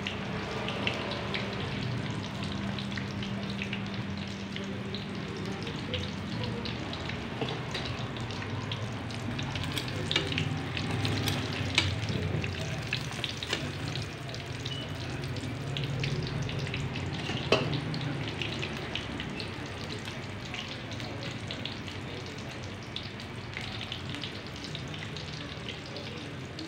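Ilocos empanadas deep-frying in a pan of hot oil: a steady sizzle full of fine crackling pops, with a low hum underneath and a few sharper clicks.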